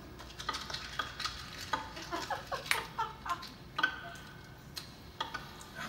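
Live sound effects of a matchbox being handled and matches fumbled for: scattered small clicks and rattles, with one sharper click nearly three seconds in.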